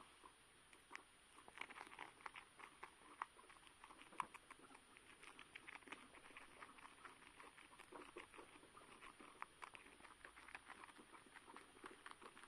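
Guinea pigs' feet and claws pattering as they run about, a faint, quick, uneven run of small taps that grows denser about a second and a half in.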